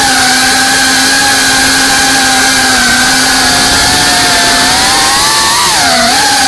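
FPV racing drone's electric motors and propellers buzzing at speed: a steady high whine that climbs in pitch about five seconds in, then dips and wavers as the throttle changes.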